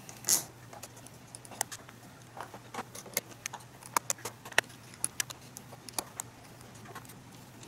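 Small screwdriver backing screws out of a laptop's bottom cover, and the loose screws being handled: scattered light clicks and taps at an irregular pace, a louder one right at the start.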